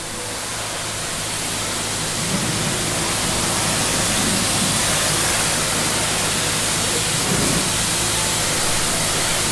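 Self-serve car wash high-pressure spray wand hissing steadily as it sprays water, swelling in over the first few seconds.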